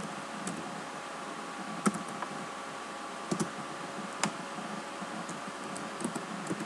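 Computer keyboard being typed on: a scattered, irregular handful of keystroke clicks over a steady faint hiss.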